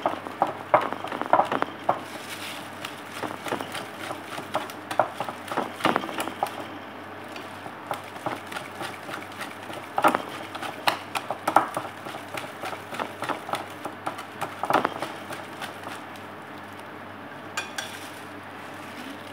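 Wire whisk beating donut batter in a bowl: irregular clicks and taps as the whisk strikes the bowl's sides. The strikes thin out near the end.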